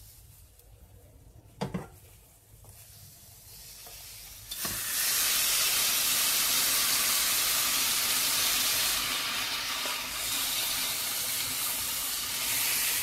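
A single knock, then about four and a half seconds in a loud, steady sizzle starts suddenly as prawns in sauce land on a very hot sizzler plate, with a spoon pushing the food off the wok.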